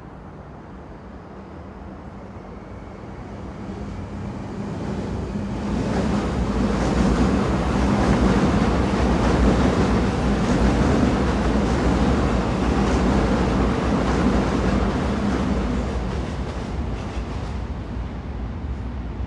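Train running on the rails: a steady rumble and rushing noise with a low hum. It builds over the first several seconds, holds, then eases off somewhat near the end.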